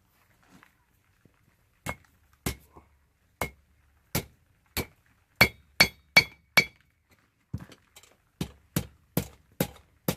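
Hand hammer blows forging rebar steel: about fifteen strikes at one to two a second, several with a metallic ring. They begin about two seconds in, with a short pause in the middle.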